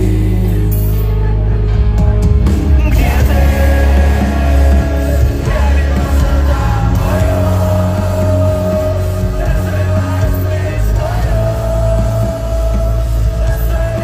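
Live concert music played loud through an arena sound system: a male singer sings into a microphone over a backing with heavy, booming bass.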